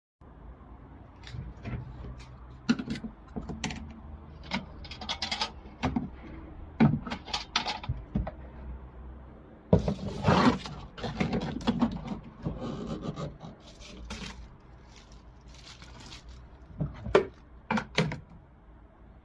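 Portable twin-tub washing machine running, with a low hum under irregular knocking and rattling from inside the machine.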